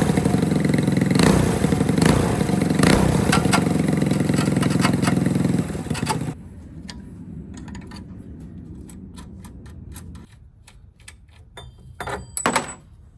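Predator 212 single-cylinder four-stroke engine on a mini bike running loud through an aftermarket exhaust, cutting off abruptly about six seconds in. Afterwards a faint low hum and a few light clicks and knocks.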